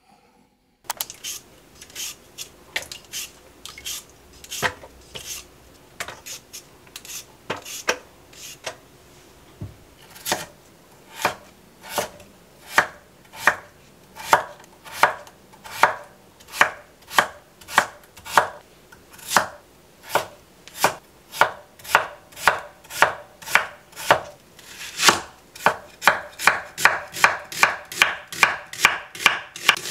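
Chef's knife chopping peeled potatoes on a wooden cutting board: a long series of sharp knocks, about one or two a second. Near the end it quickens to about three a second as a halved onion is sliced.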